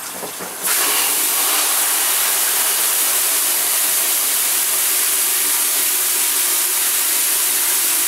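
Water jetting from a garden hose spray nozzle into a plastic bucket in a utility sink, filling it. A steady hiss starts suddenly under a second in, over a quieter rush of water before it.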